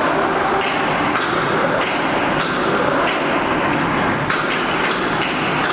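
Small diesel concrete pump running: a steady, loud machine noise with sharp metallic knocks recurring about every half second.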